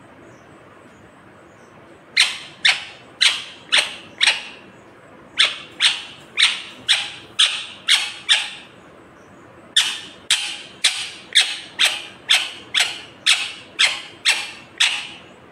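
An Indian ringneck parakeet making three runs of sharp, loud, evenly spaced sounds, about two a second. They start about two seconds in and stop shortly before the end.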